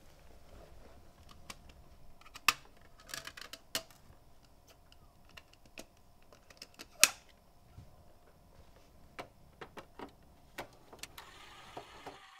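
Scattered clicks and small plastic rattles of a disc being handled and pried out of a clear plastic disc case, with two louder snaps, the sharpest about seven seconds in.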